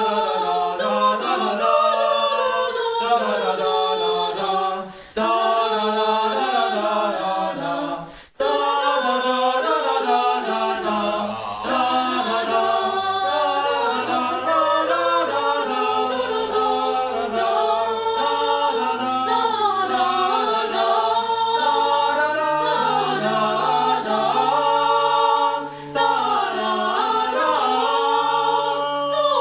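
Unaccompanied group singing in several voice parts, a cappella, with two short breaks early on. A low bass part comes in about eleven seconds in.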